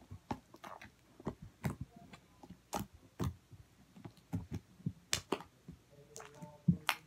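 Slime being squished and poked, making irregular sharp clicks and pops, several a second at times.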